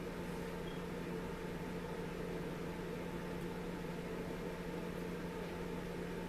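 Steady low hum with hiss, unchanging throughout.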